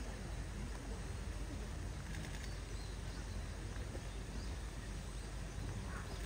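Steady outdoor background noise with a low rumble and a few faint bird chirps.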